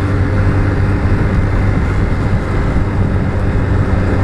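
Motorcycle engine running at a steady speed while riding, a constant low hum, with wind rushing over the microphone.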